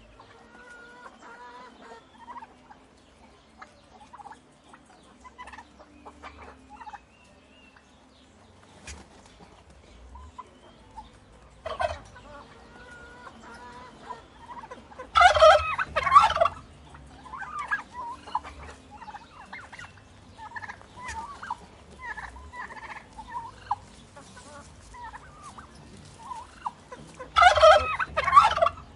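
Turkeys gobbling: a short loud gobble about twelve seconds in, a longer loud gobble around fifteen seconds and another near the end, with softer calls in between.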